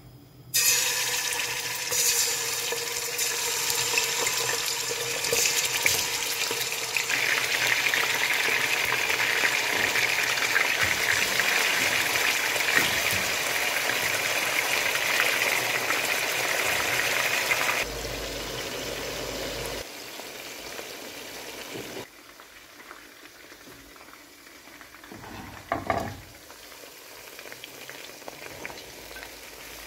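Chicken wing drumettes frying in hot oil in a non-stick pan: a loud sizzle starts suddenly about half a second in and stays steady. It drops to a quieter sizzle about two-thirds of the way through, with a few brief stirring knocks near the end.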